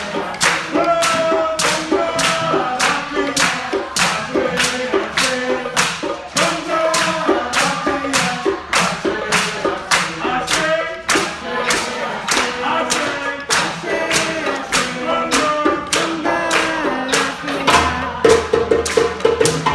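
Hand drums, djembes, played together in a fast, steady rhythm of sharp strokes, several a second, with a pitched melody stepping up and down over the drumming.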